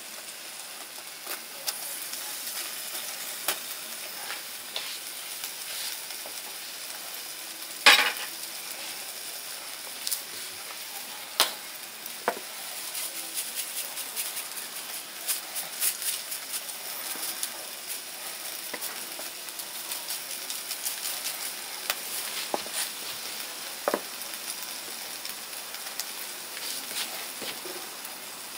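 Beef sizzling on the grill: a steady high hiss with constant small crackles and several sharp pops, the loudest about eight seconds in.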